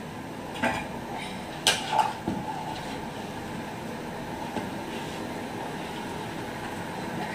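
A long-handled slotted ladle knocking against a large aluminium pot and stirring watery biryani masala, with a few sharp knocks in the first couple of seconds. Underneath is a steady rushing noise from the gas burner below the pot.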